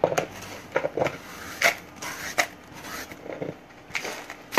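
Irregular knocks and scrapes of hands working on a flat grinding stone, crushing and tapping dried crayfish (njanga), with a louder knock at the very end.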